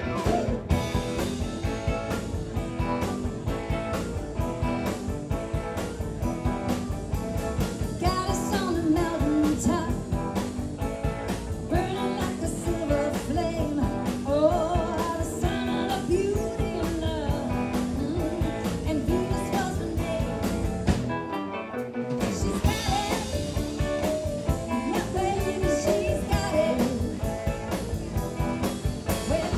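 Live rock band playing a song: electric guitar, bass guitar, drum kit and keyboards, with a woman singing lead from about eight seconds in. The bass and drums drop out briefly about two-thirds of the way through, then the full band comes back in.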